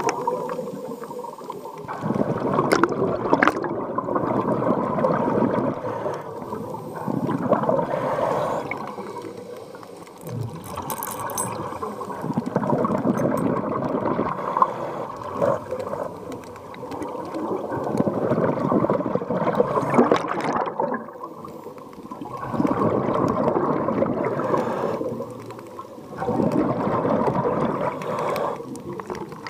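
Underwater scuba breathing: the exhaled bubbles from a diver's regulator gurgle and rush in surges every few seconds, muffled by the water.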